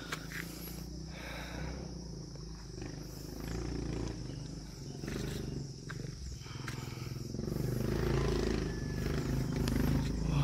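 Motorcycle engine, likely the Honda XRM 125's small single-cylinder four-stroke, running as the bike climbs the trail. It grows steadily louder as it approaches, most of all in the last few seconds.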